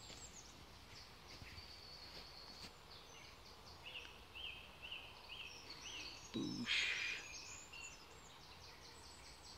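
Wild birds singing, with high trills and a run of five or six repeated short notes midway. A short burst of noise, the loudest moment, comes about two-thirds through.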